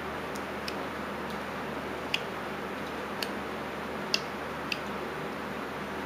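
Carving knife taking small cuts from a basswood blank: a handful of short, sharp clicks at irregular moments as the blade comes through the wood, over a steady background hiss.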